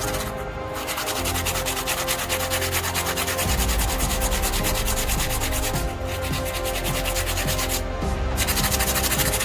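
Power sanding: an abrasive rubbing hard and fast against a workpiece, over a steady motor hum. The rubbing breaks off briefly three times, about half a second in, around six seconds and around eight seconds, as the contact is lifted.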